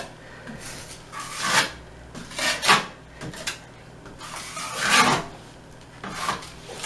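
Metal joint knife scraping wet joint compound across a plaster wall, in a handful of separate strokes about half a second each as the compound is spread and smoothed into holes.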